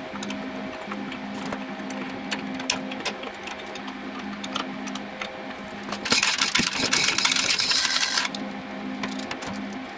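A hand ratchet clicks in quick runs as the bolts of an engine mount are tightened, over a steady low hum. About six seconds in, a louder rasping noise lasts roughly two seconds.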